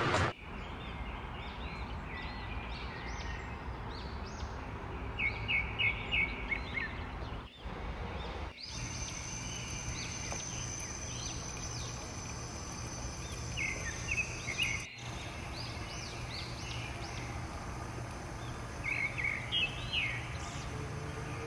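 Small birds chirping in quick bursts, three times, over a steady hiss of water.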